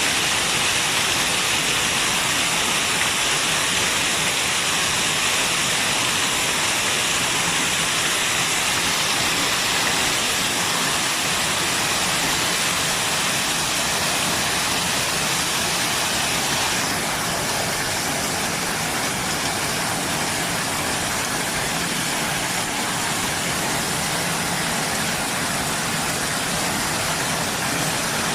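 Waterfall rushing in a steady, even roar of falling water; the high hiss eases slightly about seventeen seconds in.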